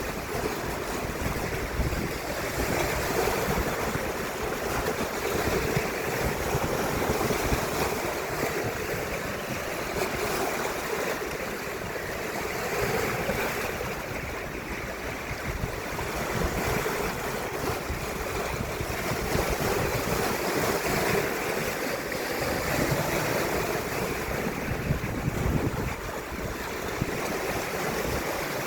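Baltic Sea waves washing ashore in a continuous surf that swells and eases, with wind buffeting the microphone as a low rumble.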